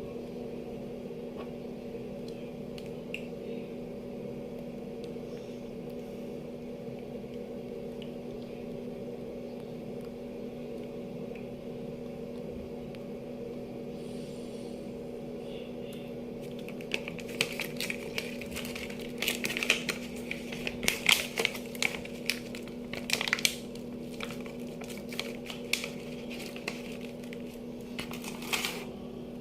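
A steady low hum throughout. Through the second half comes a run of light clicks and clatters, like small hard objects or dishes being handled.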